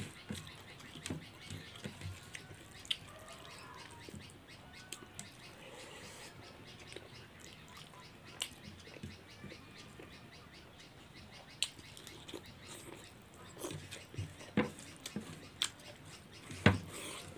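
Quiet eating by hand: fingers mixing and scraping rice across a plate and mouth clicks from chewing, heard as scattered sharp clicks and taps, a few louder near the end. Faint bird chirps sound in the background.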